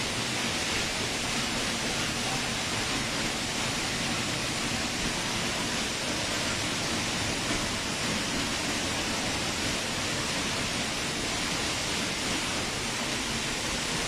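Steady rush of a tall free-falling waterfall, its water pouring down and splashing without a break.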